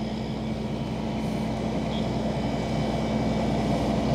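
Engine running steadily with a low hum, slowly getting louder.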